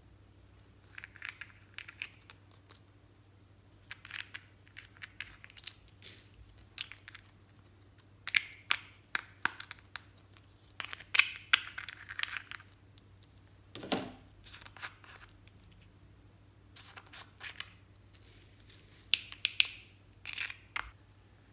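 Small plastic contact lens case being handled and its screw caps twisted open: repeated bursts of plastic clicking and scraping, with one duller knock about halfway through.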